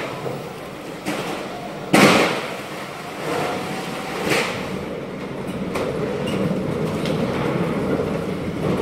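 Loading-dock clatter: a pallet jack and loaded pallets rumbling and knocking over the metal dock plate and trailer floor, with several sharp bangs, the loudest about two seconds in, over a steady mechanical hum.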